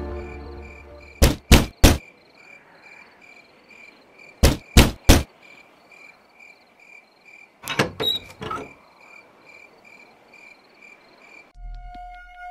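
Three sharp knocks on a door, then three more a few seconds later, over steady chirping crickets; a short clatter follows about eight seconds in. The logo music fades out at the start, and a low music drone comes in near the end.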